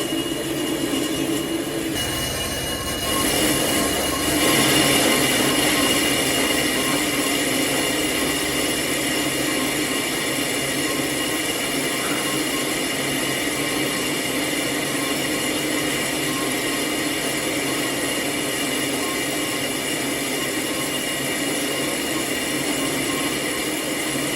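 A lathe turning a motor pulley while the cutting tool works the metal, giving a steady squealing hiss with high ringing tones. It grows louder a few seconds in, as the cut bites harder, then holds steady.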